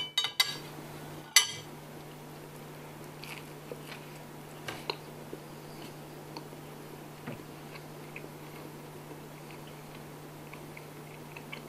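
Toast crunching as it is bitten, loudly twice in the first second and a half, then soft chewing with faint scattered crunches.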